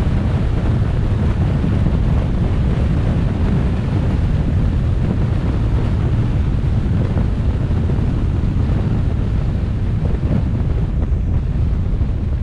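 Steady wind rushing over the microphone, with a low rumble of road noise from a moving vehicle.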